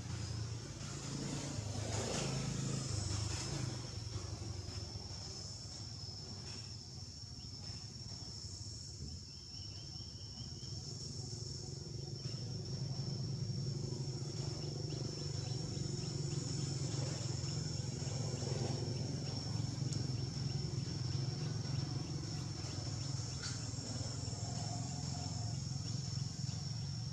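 Insects droning in a single steady high-pitched tone that never breaks, over a low, steady rumble.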